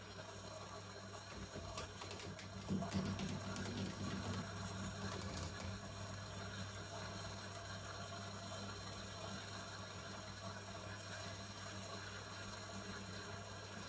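Washing machine running: a steady low hum with a watery churning noise, busier with a few light knocks between about two and six seconds in.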